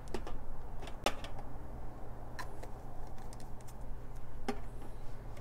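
Plastic bottles and caps being handled and set on a stainless steel tray: a handful of scattered light clicks and taps over a low steady hum.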